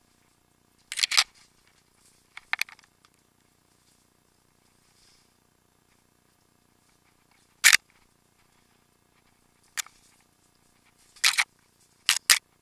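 Sharp knocks and rattles from a mountain bike jolting over a rough forest trail, about seven of them at irregular intervals, a few in quick pairs, with near quiet between.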